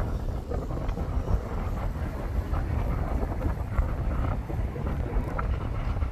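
Strong sea wind buffeting the microphone as a steady low rumble, over the wash of rough surf breaking on the beach.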